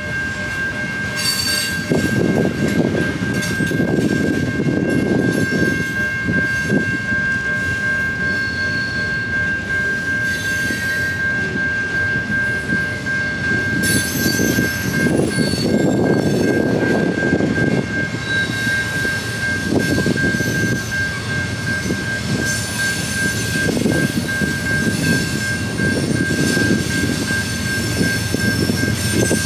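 Canadian National freight train of tank cars rolling past: the wheels clatter over the rail joints in uneven surges, over a steady high-pitched tone.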